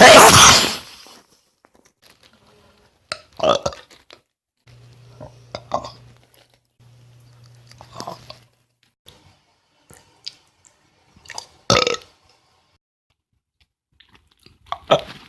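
A person burping: one long, loud burp right at the start, then a handful of shorter, quieter sounds a few seconds apart.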